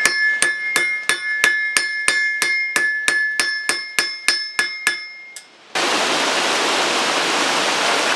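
A blacksmith's hand hammer striking iron on an anvil, about three blows a second, each hit leaving a clear metallic ring that carries through the strokes; the blows grow fainter and stop. About six seconds in, a steady rush of running water from a small cascading stream takes over.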